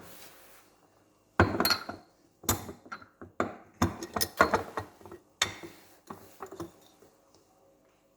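A run of sharp clinks and knocks as cups and espresso-making gear are handled, about a dozen separate strikes.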